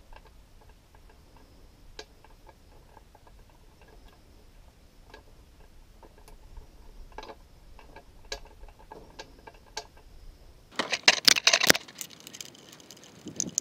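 Faint scattered ticks of hands working metal parts, then, about eleven seconds in, a ratchet wrench clicking rapidly for a little over a second as it turns a sacrificial anode bolt on an outboard's lower unit.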